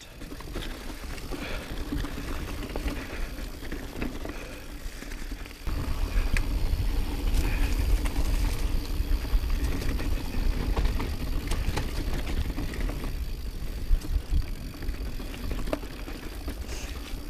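Intense Recluse full-suspension mountain bike riding down rocky singletrack: tyres crunching over dirt and rocks, with scattered knocks and rattles from the bike. Wind rumbles on the camera microphone, heavier from about six seconds in.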